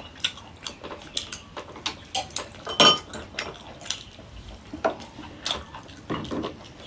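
Chopsticks and tableware clicking and clinking during a meal, in a scatter of short taps, with one louder ringing clink about three seconds in.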